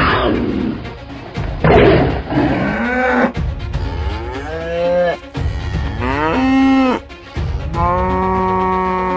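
Cows mooing several times, each moo falling away in pitch at its end, the last one long and held even near the end. At the very start a short tiger roar, with background music underneath.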